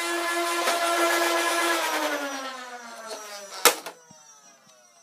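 Modded Nerf Strife blaster's flywheel motors, run on IMR batteries with the locks removed, revving with a steady whine, then spinning down in falling pitch from about two seconds in. A single sharp knock cuts in partway through the spin-down.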